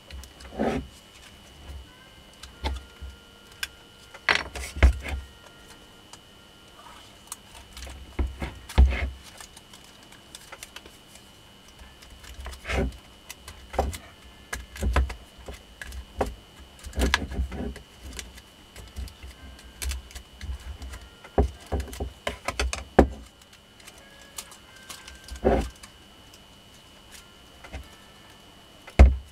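Scattered clicks and light knocks at irregular intervals from hand work on a DC motor armature: its paper slot insulation and copper wire being handled and pressed into the slots with a small tool.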